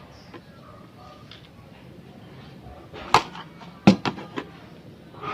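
Two sharp knocks a little under a second apart past the middle, then a few lighter clicks: parts of a window-type air conditioner being handled and fitted back together.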